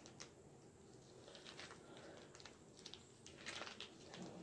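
A few faint, scattered crackles as a small plastic packet of French dressing is squeezed out over a salad, against near silence.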